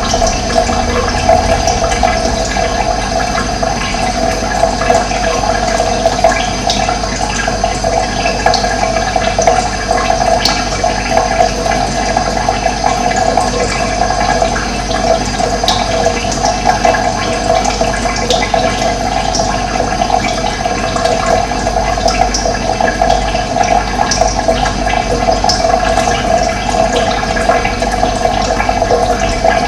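Steady running water, a continuous rushing and burbling, with a few brief high bird chirps here and there.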